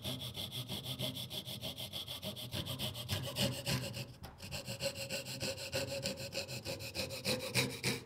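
Coping saw cutting a curve through a thin wooden board in fast, even back-and-forth strokes, with a short break about four seconds in.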